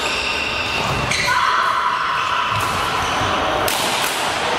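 Badminton rackets striking a shuttlecock during a doubles rally, sharp cracks twice, about two and a half seconds apart, each ringing on in a large echoing hall, over steady background voices and court noise.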